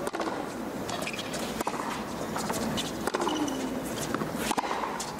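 Tennis rally: a ball struck with a racket about every second and a half, the four hits ringing out against steady stadium ambience, with a brief falling voice about four seconds in.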